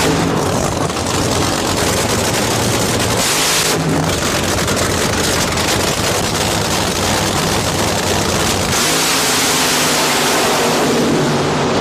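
Supercharged nitro-burning funny car V8 engines running hard: a loud, dense, unbroken engine racket. The sound shifts abruptly about four and about nine seconds in.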